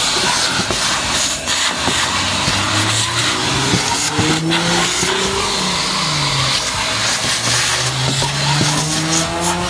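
Vacuum cleaner running: a loud steady rushing hiss with a low motor hum that rises and falls in pitch several times, and a few knocks.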